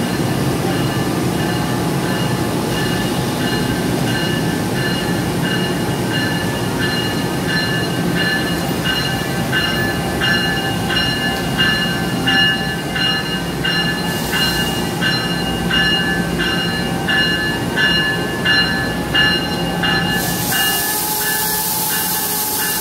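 Standing NJ Transit electric train equipment humming in a station, with steady high whining tones that pulse about one and a half times a second. About twenty seconds in, a hiss of released air starts and keeps going.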